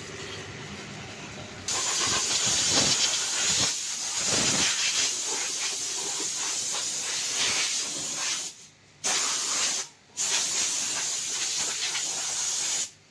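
High-pressure spray gun on a motorbike service line hissing in long blasts, with two brief pauses partway through and a stop just before the end.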